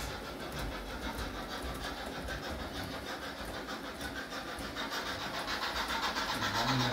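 Gauge 0 model steam locomotive running along the track: a steady rolling and motor noise with a fast, even rhythm in its hiss, getting louder near the end as the train comes closer.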